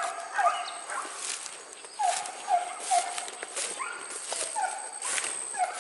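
Hunting dogs yelping on a wild boar's trail: short yelps that fall in pitch, coming in quick runs of two or three, with gaps between runs. Sharp crackles are scattered through it.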